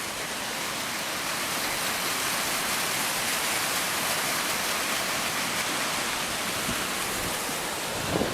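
Torrent of rainwater rushing down a mountainside: a steady rush of water that grows a little louder over the first two seconds, then holds.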